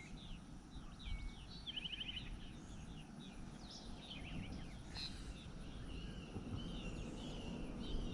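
Several songbirds chirping and warbling, with a short rapid trill about two seconds in, over a low steady rumble.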